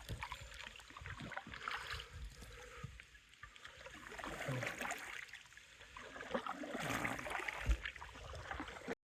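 Canoe being paddled on a river: paddle strokes and water swishing, swelling and fading about every two and a half seconds, with scattered low thumps. The sound cuts off abruptly near the end.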